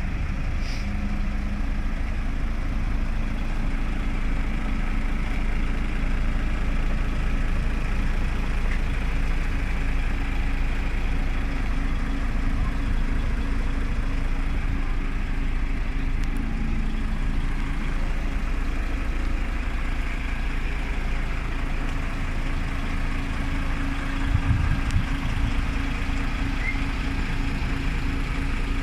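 DAF XF 460 tractor unit's PACCAR MX-13 six-cylinder diesel idling steadily, a low even rumble.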